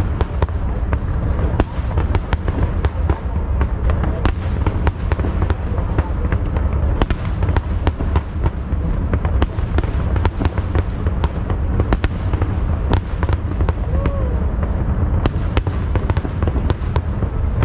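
Aerial fireworks display in full barrage: a continuous run of sharp cracks and bangs, many a second, over a deep, unbroken rumble of booming shells.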